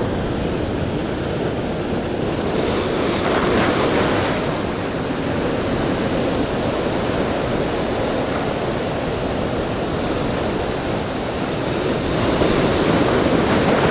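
Rough sea surf breaking and washing over shoreline rocks, a continuous wash that swells louder about three seconds in and again near the end, with wind buffeting the microphone.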